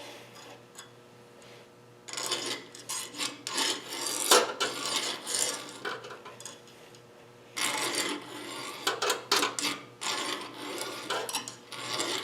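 Piston compression ring end being filed by hand on a file held fixed, a rasping run of quick strokes from about two seconds in and a second run from about seven and a half seconds in: cutting the ring's end gap wider to size.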